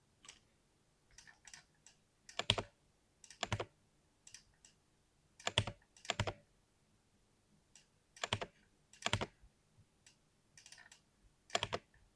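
Mechanical keyboard being typed on slowly and unevenly: light key clicks between heavier clusters of strokes that land about every second or two.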